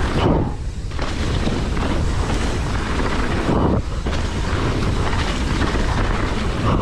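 Wind rushing over the microphone and the tyre and frame rumble of a hardtail mountain bike descending a dirt trail. The noise is steady except for two short dips, about half a second and nearly four seconds in.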